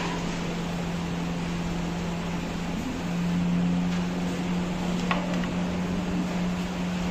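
Steady low machine hum under an even room noise, with a single light click about five seconds in.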